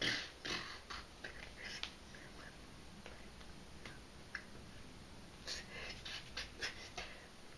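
Scattered soft clicks, taps and breathy puffs close to the microphone, the sounds of a person's hands and mouth while signing without voice. The loudest puff comes right at the start, with a cluster of quick clicks about five and a half to seven seconds in.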